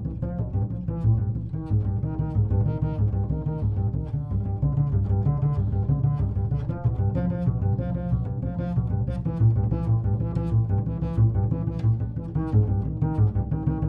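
Solo acoustic double bass played pizzicato: a quick, continuous run of plucked notes.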